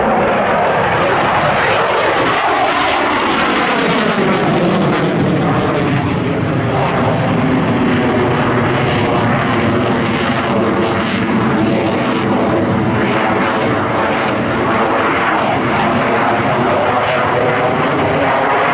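Saab JAS 39 Gripen's single Volvo RM12 jet engine, loud and steady, as the fighter flies its display.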